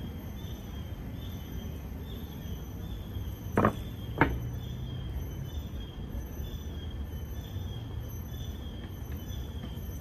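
Outdoor ambience with a steady low rumble, and a faint high chirp repeating about three times every two seconds. Two sharp, loud sounds come close together a little before the middle.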